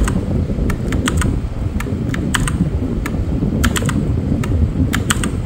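Bosston mechanical keyboard keys pressed one at a time in irregular single clicks and quick pairs, as the keyboard is tested key by key. A steady low rumble runs underneath.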